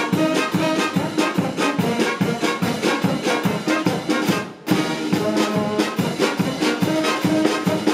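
Brass band of tubas, trumpets, trombones and snare drums playing a tune with a steady beat, with a brief drop in the sound about halfway through.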